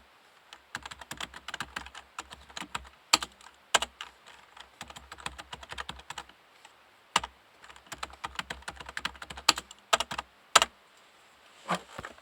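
Typing on a Topre REALFORCE 108P-S, a silent-type keyboard with electrostatic capacitive switches: quick runs of key strokes broken by short pauses, with a few louder single strokes.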